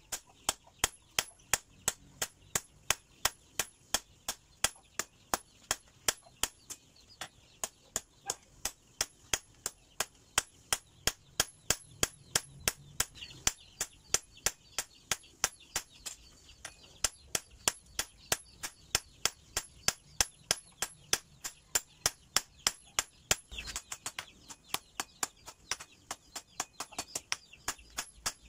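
Hand hammer striking a red-hot steel knife blade on an anvil while forging it, steady blows about three a second, each with a short bright metallic ring.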